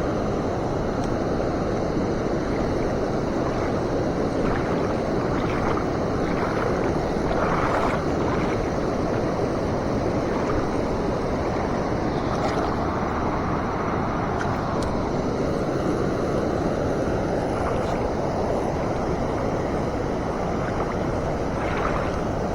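Flowing river water making a steady rushing noise, with a few faint clicks.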